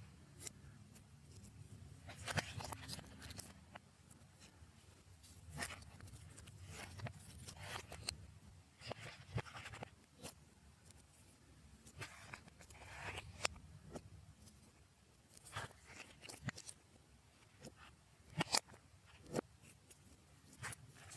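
Slime being mixed and squeezed by hand, giving faint irregular sticky clicks, pops and short crackles.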